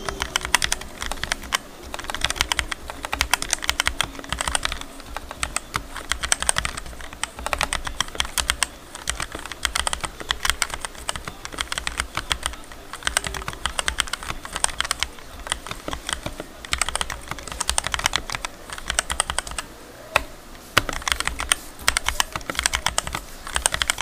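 Rakk Lam Ang Lite mechanical keyboard with stock Outemu Red linear switches being typed on fast, a dense run of key clacks in quick bursts with short pauses. The board carries a tempest mod, PE foam, a plumber's mod and clipped, lubed stock stabilizers, which shape its sound.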